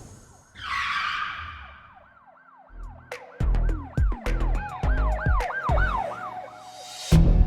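Produced intro: a whoosh, then a siren-like tone rising and falling over and over, several times a second. About three seconds in, a heavy bass beat joins it.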